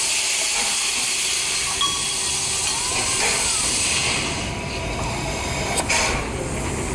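Small steam tank locomotive hissing steam from around its cylinders. The hiss eases off after about four and a half seconds, and a single sharp click sounds near the end.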